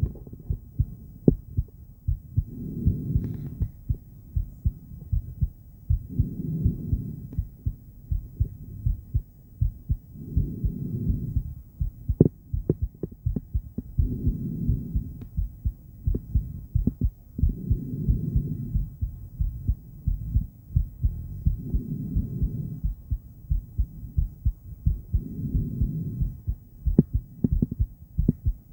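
A woman's heartbeat played through a handheld ultrasonic Doppler device: a steady run of low, regular thumps, with a low whooshing swell that rises and falls about every four seconds.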